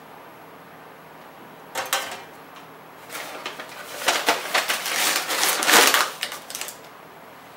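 A hard acrylic tube being handled on a wooden workbench: a brief clatter about two seconds in, then a few seconds of irregular scraping and knocking as the tube is slid and set down, loudest near the end before it stops.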